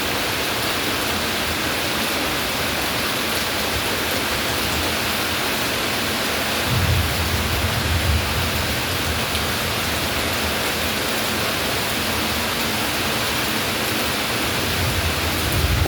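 Steady rain falling, an even hiss, with a brief low rumble about seven seconds in and another near the end.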